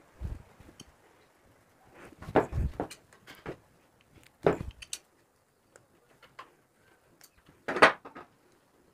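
Pliers cutting and stripping the black outer sheath of a three-core electrical cable, with scattered clicks and a few dull knocks as the cable and tools are handled and set down on a wooden table.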